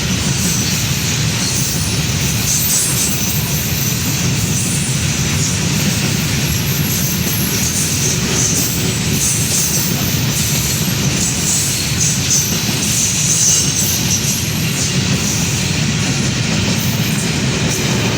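Heavily loaded freight train rolling slowly past: a steady rumble of wagon wheels on the rails, with some high-pitched wheel squeal.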